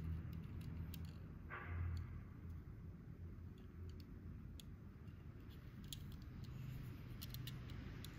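Faint handling noises of fingers turning a small die-cast model car: scattered light clicks and ticks, with a short rustle about one and a half seconds in, over a low steady hum.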